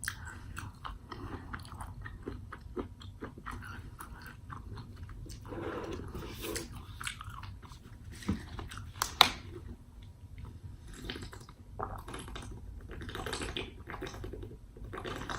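Close-miked chewing of corn kernels: many small wet clicks and smacks of mouth and teeth, with a sharper click about nine seconds in.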